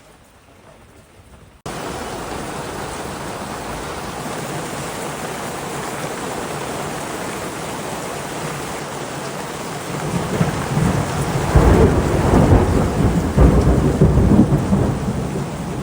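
Heavy, steady rain that starts suddenly about two seconds in, with a low rumble of thunder swelling from about ten seconds in and easing near the end.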